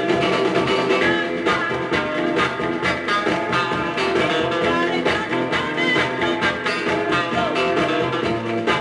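A 1960s vocal-group rock and roll 45 rpm single playing on a turntable: steady, up-tempo music with guitar.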